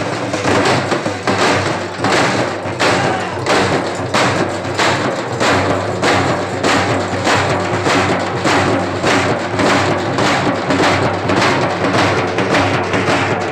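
Halgi frame drums beaten with sticks in a loud, steady rhythm, with strong accents about twice a second.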